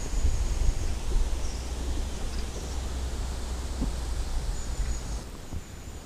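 Wind buffeting the microphone with a low rumble, over rustling leaves and a few faint high bird chirps; the wind rumble drops away about five seconds in.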